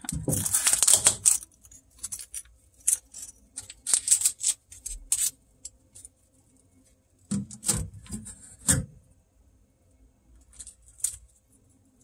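Blue adhesive shipping tape being peeled off a refrigerator's plastic shelf and drawer, then crumpled in the hand. A long ripping, crackling burst comes in the first second or so, and shorter crinkles and a few light plastic knocks follow.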